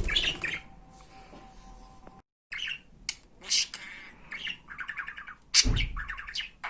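Pet budgerigar chattering with rapid chirps, squawks and warbled calls. There is a brief dead gap a little over two seconds in, and a louder burst near the end.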